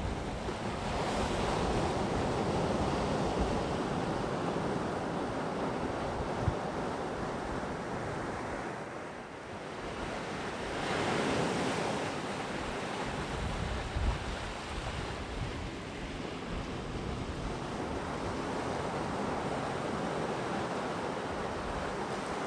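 Sea waves breaking and washing onto a beach in a continuous surf, easing off and then swelling louder about halfway through as a bigger wave comes in. A few low thumps of wind buffet the microphone.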